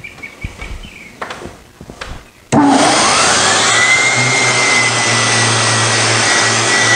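Random orbital sander with a dust-extraction hose attached switches on about two and a half seconds in. Its whine rises in pitch as it spins up, then it runs steadily against the face of a wooden cutting board.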